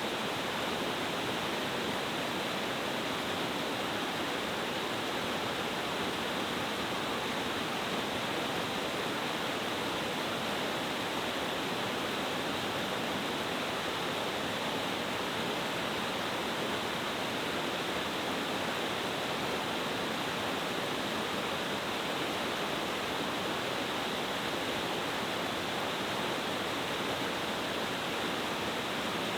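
Steady, even rush of a cascading mountain-stream waterfall, water falling powerfully over several tiers.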